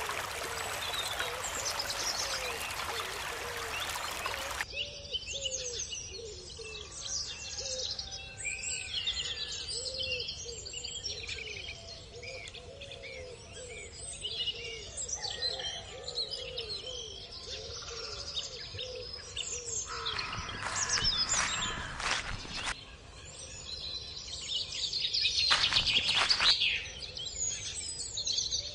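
Many small birds chirping and twittering, with a lower short call repeated about twice a second. An even hiss sits under the first few seconds, and two louder rustling noises come near the end.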